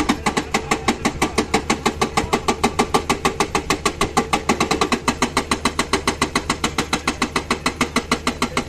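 Hydraulic breaker on a Komatsu excavator hammering steadily, about eight or nine sharp blows a second, over the low steady hum of the excavator's engine.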